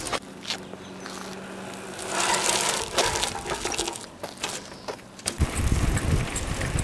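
Mountain bike on asphalt: tyre noise and a few sharp knocks as it comes down from hops. About five seconds in this gives way to a low wind rumble on the microphone while riding along.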